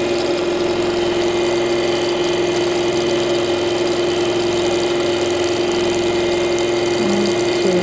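Longarm quilting machine stitching continuously, a steady mechanical hum with one constant tone as the needle runs.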